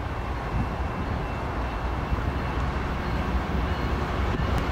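Low, steady rumble of a distant approaching diesel-hauled freight train, growing slightly louder as the lead locomotives draw nearer.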